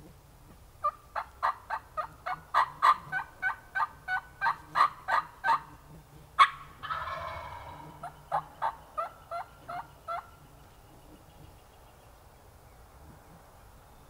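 Wild turkey yelping: a long run of sharp yelps, about three a second, then a single loud note and a brief rough rattling burst, then a second shorter run of yelps that stops about ten seconds in.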